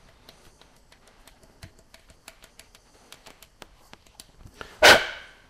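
Light clicks and scrapes of a wooden plug being pressed and turned into the bore of a cane flute, with one short, louder sound that briefly rings near the end.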